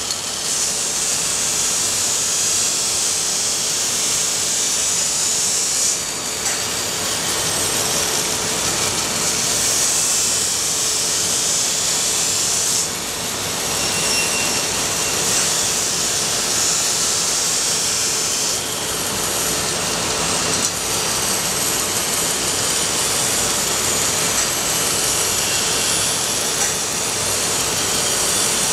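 A power tool running steadily in long stretches with a few brief dips, its sound a strong high hiss.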